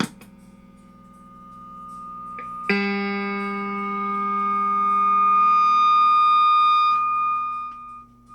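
Hofner 459 VTZ electric guitar played through its onboard treble boost circuit: a click, then a bright plucked note about three seconds in that grows louder, then is cut off about seven seconds in. The boost passing sound shows the repaired circuit is working.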